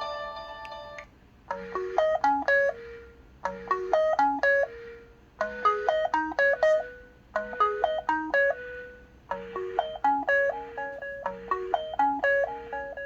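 LG Wine Smart phone playing a jazz alarm ringtone through its speaker: a short melodic phrase over a held low note, repeating about every two seconds. A different, fuller tone cuts off about a second in, just before the phrase begins.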